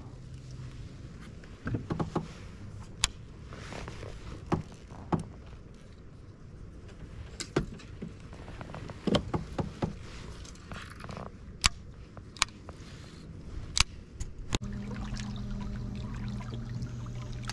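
Scattered sharp clicks and knocks from the kayak and its fishing gear as the angler handles them alongside a moored boat, over a low background of water. About fifteen seconds in, a steady low hum of the kayak under way takes over.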